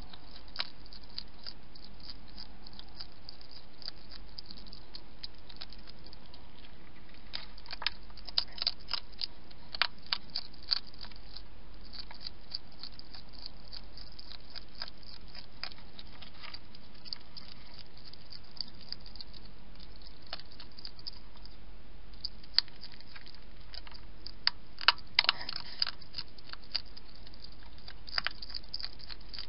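Wild European hedgehog crunching food from a bowl: irregular sharp crunches and clicks, bunched most thickly about eight to eleven seconds in and again around twenty-five seconds, over a steady low electrical hum.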